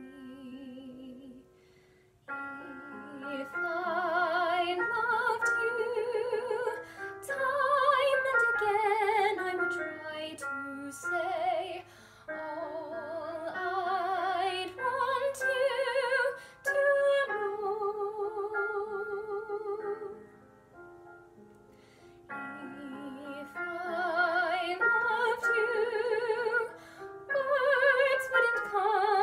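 A young woman's solo voice singing a slow musical theatre ballad in a trained, classical style. Her long held notes carry a wide vibrato, and the phrases break off briefly for breaths, with a longer pause about two-thirds of the way through.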